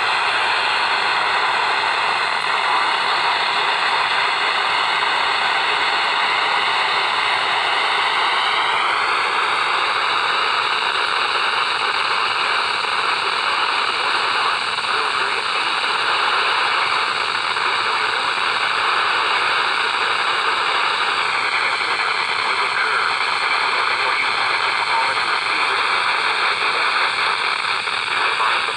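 Radio static: a steady hiss with several thin whistling tones laid over it. The tones slide to new pitches three times, near the start, about nine seconds in and about twenty-one seconds in. It is the sound of a radio receiver trying to pull in a weak, distant station.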